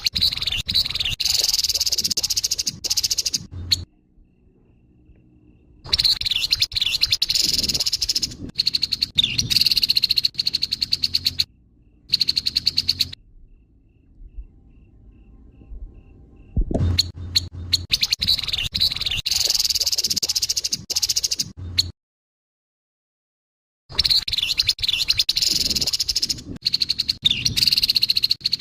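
Grey-headed babbler (tepus kepala abu) giving its harsh call: bouts of rapid chattering notes, each a few seconds long, separated by short pauses.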